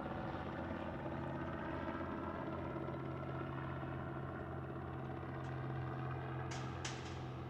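Light aircraft engine running steadily at a constant pitch, with two short sharp clicks near the end.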